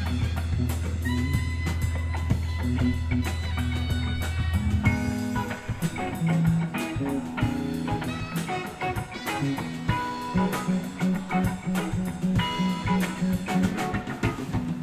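Live rock band playing an instrumental jam, with electric guitar, bass and drum kit. The bass holds one long low note, then about five seconds in breaks into a moving line of shorter notes.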